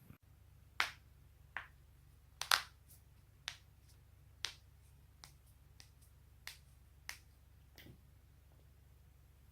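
Spinal joints cracking: a string of about ten sharp, separate pops at irregular gaps of roughly a second, the loudest a doubled crack about two and a half seconds in, over a steady low hum.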